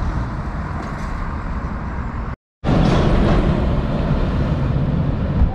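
Roadside traffic noise beside a highway: vehicle engines and passing traffic as a steady rumble. It drops out completely for a moment about halfway through, then resumes slightly louder.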